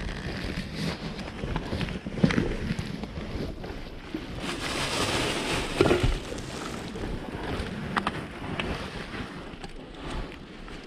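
Handling noise: rustling of a jacket and plastic bag as a camera is turned over in the hands, with a few sharp knocks of the camera body and a louder stretch of rustling in the middle.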